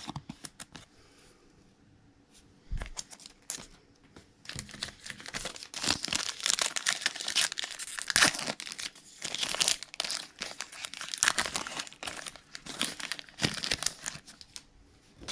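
Crinkly plastic packaging being handled, crackling and rustling. It is sparse at first, then dense from about four seconds in until just before the end.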